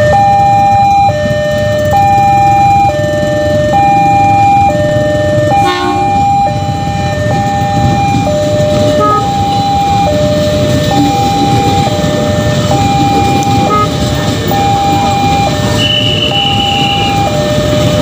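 Railway level-crossing alarm sounding its two-tone warning, a higher and a lower note alternating, each held about a second, over the steady rumble of a KRL commuter electric train passing the crossing. A brief honk cuts in about six seconds in.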